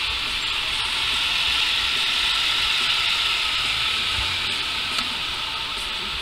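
A steady, high-pitched hiss over a faint low rumble from a car driving along a street; the hiss eases a little near the end.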